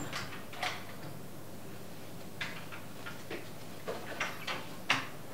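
A few faint clicks and taps of a door being opened and someone stepping in, over quiet room tone.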